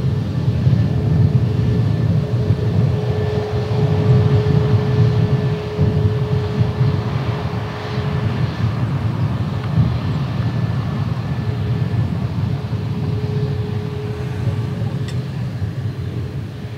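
Airbus A320neo's CFM LEAP-1A turbofan engines at low taxi power: a steady whine over a low rumble. The whine fades a little about halfway and comes back near the end.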